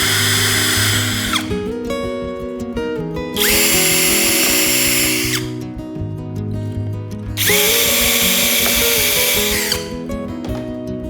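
Electric drill running in three bursts of a few seconds each, each whining up to speed and winding down when released. Background music plays under it.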